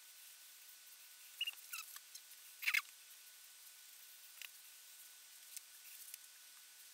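Short, high-pitched scratches and squeaks of a wooden graphite pencil drawing on paper, sped up, over a steady faint hiss. The loudest scratch comes a bit under three seconds in, with a few small ticks later.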